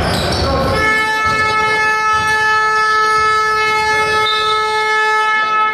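Basketball arena buzzer sounding one long steady tone, starting about a second in and lasting about five seconds: the horn that signals the end of a period of play.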